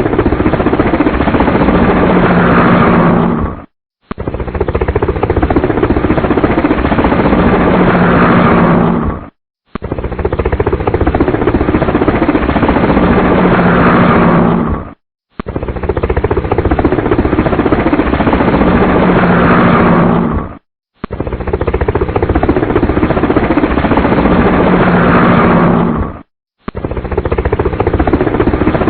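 Toy helicopter's electronic helicopter sound effect, a rattling rotor-and-engine noise played over and over in identical bursts of about five seconds, each cut off by a short silence before it starts again.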